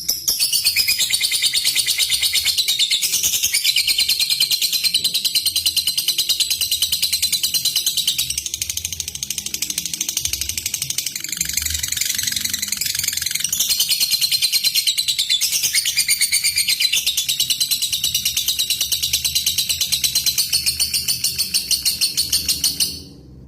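Lovebird giving its long chattering 'ngekek' call: a fast, even run of shrill chirps that goes on almost without a break, pausing briefly just before the end.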